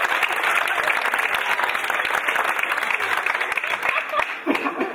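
Audience applauding, a dense steady clapping, with a voice or two heard briefly near the end.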